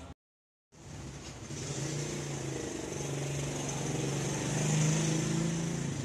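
Motorcycle engine running as it passes close by, growing louder to a peak about five seconds in and then easing off, with a brief silent gap just after the start.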